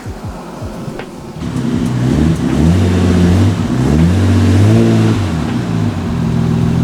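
Car engine revving, held at steady revs with a few brief rises and falls in pitch.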